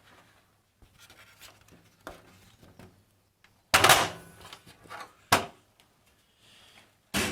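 Front panel of an NZXT S340 PC case being prised off by hand: faint rubbing and small clicks, then a loud sudden pop about three and a half seconds in, followed by two sharp knocks.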